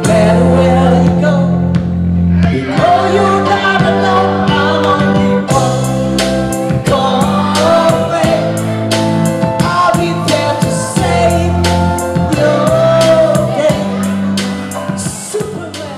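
Background music: a song with singing over a steady beat and bass, fading down near the end.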